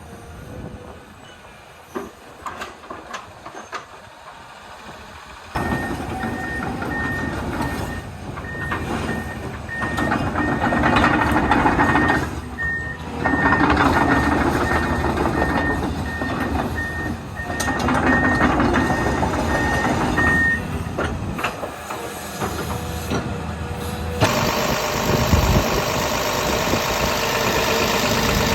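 Komatsu PC210-10 excavator's diesel engine starting up about five seconds in and running, after a few light knocks and clicks. A warning alarm beeps steadily, about once a second, for some fifteen seconds. Near the end the engine note grows brighter and louder.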